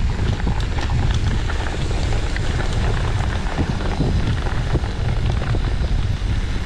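Mountain bike riding fast over a wet, rough dirt trail, picked up by a camera mounted on the bike: a steady low rumble of wind and tyre noise with many small clicks and rattles from the bike over the ground.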